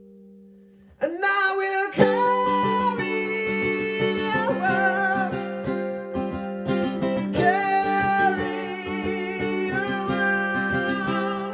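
Singing with a strummed ukulele, amplified through a Bose S1 Pro+ portable PA speaker. After a short pause the strumming comes back in about a second in, and the voice joins about a second later with long held notes.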